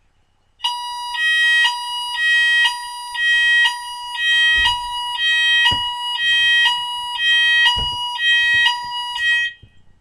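Fire alarm sounding, a loud two-tone signal that switches between two pitches about twice a second, starting about half a second in and cutting off shortly before the end. A few dull knocks sound underneath.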